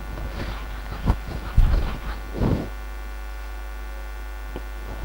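Steady electrical mains hum with a buzzy stack of overtones, with a few soft bumps and a click in the first three seconds.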